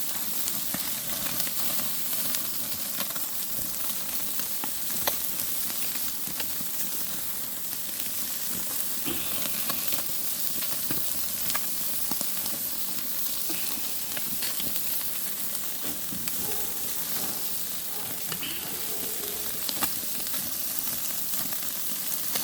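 Seafood sizzling steadily on a grill, with scattered sharp crackles and pops; the food is not yet cooked through.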